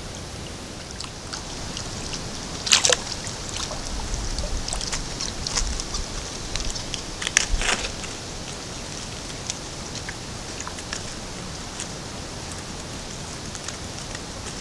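Shallow water splashing and sloshing as a great egret wades close past the microphone, with two sharper splashes about three and seven and a half seconds in, over a steady hiss.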